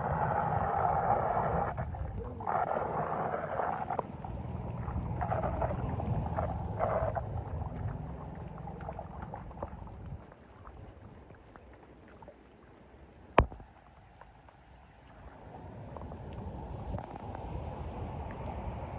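Water splashing and sloshing in several bouts through the first eight seconds, then a quieter stretch with one sharp click about thirteen seconds in, and a steady rush of water near the end.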